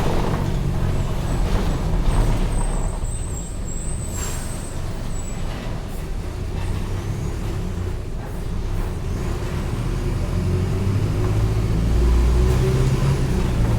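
Mercedes-Benz OF-1722M city bus engine running, easing off about three seconds in and pulling harder again near the end, with short hisses of the air brakes in the middle.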